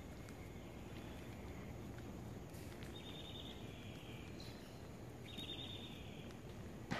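Quiet outdoor ambience with a high, buzzy trill of about a second heard twice, and a single sharp tap just before the end.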